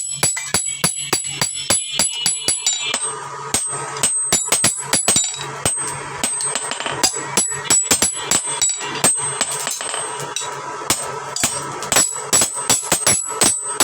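Rapid, uneven hammer blows on steel at an anvil, several a second, each giving a bright metallic ring, over a steady low hum.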